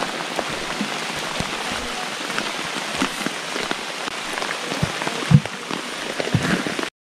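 Steady rain falling on a surface, with scattered louder drops; the sound cuts out for an instant just before the end.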